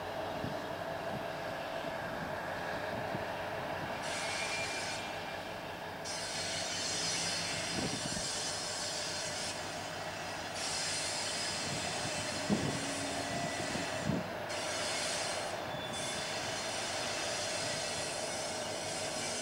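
Class 60 diesel locomotive running as it slowly hauls a loaded train of hopper wagons round curves, with a steady engine hum. From about four seconds in, a high wheel-flange squeal comes and goes. A few sharp clanks sound near the middle.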